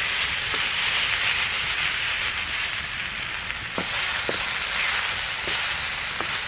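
Lamb pieces and onions sizzling steadily as they fry in a large Finnish wilderness pan over a campfire, stirred with a wooden spatula. A few light clicks come through the sizzle.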